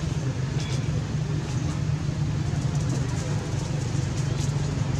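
Steady low rumble and hiss of outdoor background noise, with a few faint clicks.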